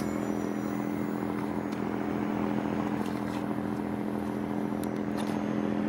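A steady motor drone holding one unchanging pitch.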